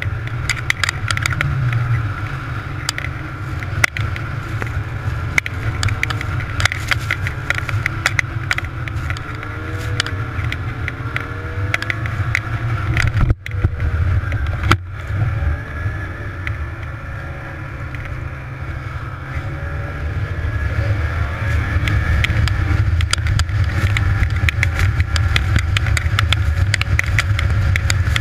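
Snowmobile engine running under way as the machine travels along a snow trail, its pitch rising and falling with the throttle and getting louder over the last several seconds. The sound cuts out twice, briefly, about 13 and 15 seconds in.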